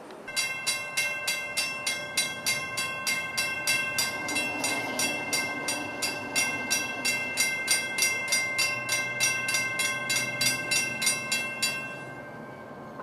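Railroad grade crossing bell ringing steadily at about three strikes a second, warning of an approaching train; it starts just after the start and stops about a second before the end.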